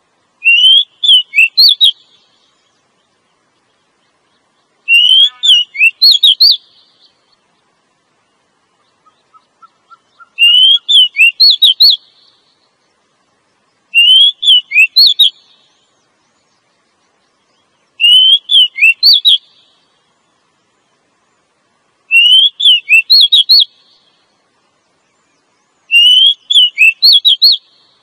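Female oriental magpie-robin calling: seven short phrases of quick, high, slurred whistled notes, each about a second and a half long and repeated every four seconds or so. This is a female's call of the kind used as a lure to draw in male magpie-robins.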